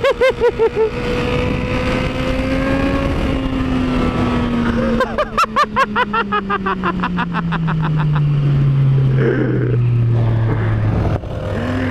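Yamaha MT-09's three-cylinder engine under way at highway speed with wind rushing past, its note falling steadily over the second half as the throttle is rolled off. A rapid fluttering pulse comes in near the start and again about five seconds in.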